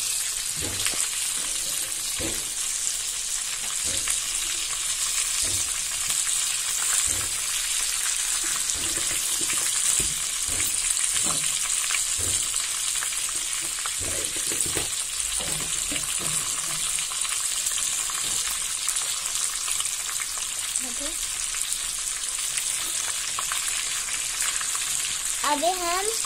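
Slit green olives frying in hot oil in a kadai, a steady sizzle, with a few light, irregular knocks.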